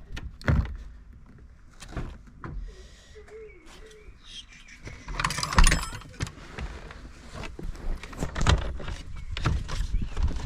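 Irregular clicks and knocks of plastic dashboard trim and wiring connectors being handled and fitted in a car interior, with a louder scraping rustle about five and a half seconds in.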